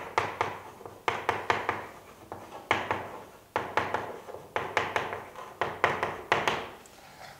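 Writing strokes tapping and scraping on a board, coming in quick clusters of ticks as each word is written, with short pauses between words.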